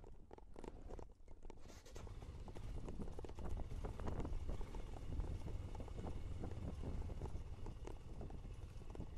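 Royal Enfield Himalayan's single-cylinder engine running at low revs as the motorcycle rides slowly over a rough gravel trail, with many small knocks and rattles from stones and the bike. It gets louder about two seconds in.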